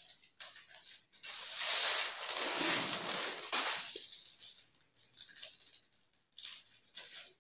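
Thin kite paper crinkling and rustling as it is handled and taped, with a longer, louder rasping rustle from about one to four seconds in.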